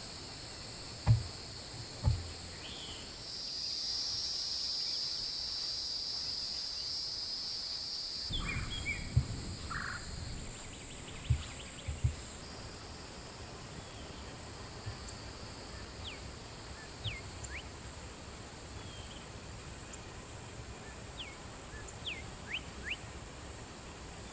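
Outdoor nature ambience: a steady high-pitched insect drone, swelling for about five seconds near the start into a louder buzzing insect chorus, with short downward-sweeping bird chirps scattered through the second half. A few sharp low thumps stand out, the loudest about a second in.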